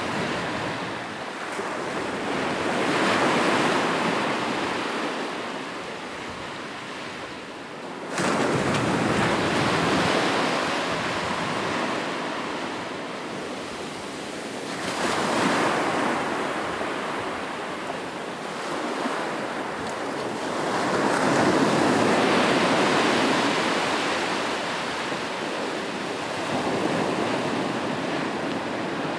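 Sea waves breaking and washing up the shore in repeated surges that swell and fade every several seconds. One wave breaks suddenly and loudly about eight seconds in.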